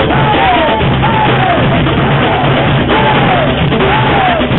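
Afro-Brazilian percussion band drumming loudly, a dense steady beat. Over it a pitched sound slides up and then down about once a second.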